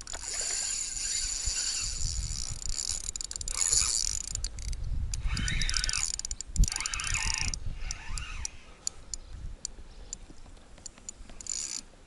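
Spinning reel being cranked to bring in a hooked fish: a steady whirring with rapid clicks that stops about seven and a half seconds in, followed by scattered clicks. A single sharp knock about six and a half seconds in.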